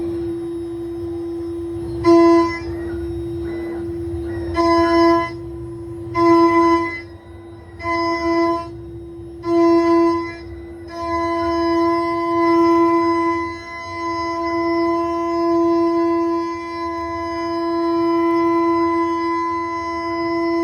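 Homemade CNC milling machine rough-cutting an end face: a steady high spindle whine that turns louder and richer each time the cutter bites, in short passes at first and then continuously from about halfway.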